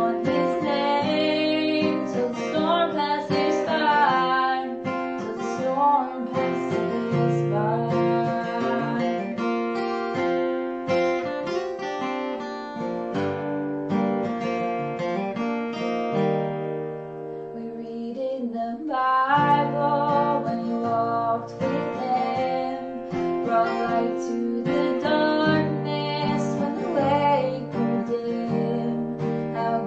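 A woman singing a slow song to strummed acoustic guitar. A little past halfway the voice pauses for a couple of seconds and the guitar carries on alone before the singing returns.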